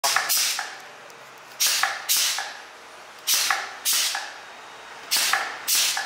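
YX-PC01 pneumatic cap crimping machine cycling: each cycle gives two sharp hisses of exhausting compressed air about half a second apart, with faint clicks, repeated four times about every second and a half to two seconds.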